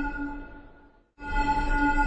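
Emergency alert tone: a held electronic chord of several steady pitches that fades away, cuts off briefly, and starts again just over a second in, repeating about every two seconds.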